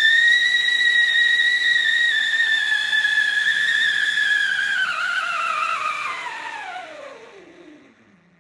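Whistle fountain firework burning: one shrill whistle over a faint hiss. It holds a steady pitch for about five seconds, then slides down in pitch and fades out as the fountain burns out.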